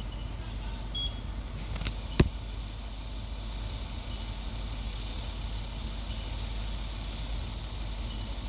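Fire truck engine idling with a steady low rumble, and a sharp knock about two seconds in.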